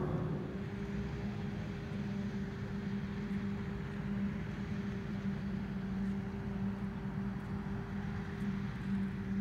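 Maize silage harvesting machinery, a forage harvester and tractor, running steadily with an even engine drone and constant hum.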